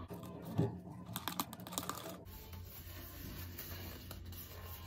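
Thin plastic disposable glove being handled and pulled on: light crinkling and rustling, with a quick run of small clicks in the first two seconds.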